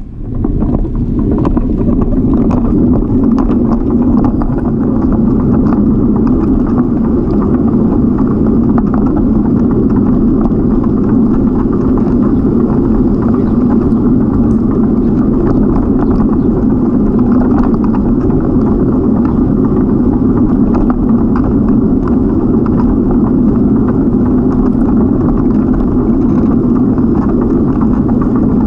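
Steady wind rush and tyre rolling noise from a moving bicycle, picked up by a camera mounted on the bike: a constant low rumble that holds unchanged throughout.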